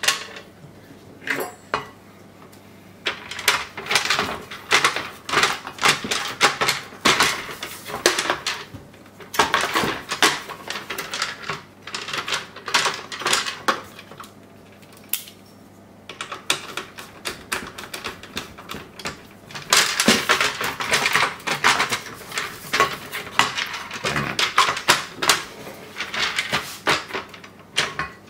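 Screwdriver turning screws into a plastic washing-machine door ring: long runs of rapid clicking and plastic rattling, pausing briefly a few times.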